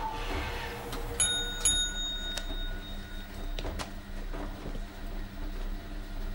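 A small bell dings about a second in and again half a second later, its bright tone ringing on for about two seconds, over a steady low hum of machinery; a few light clicks follow.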